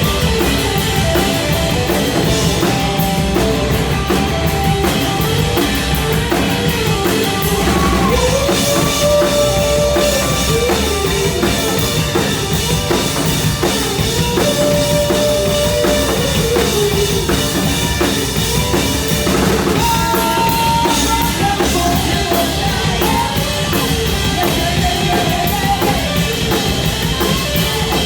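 Rock band playing an instrumental section: drum kit and bass keep a steady beat while a lead line bends and holds notes over it.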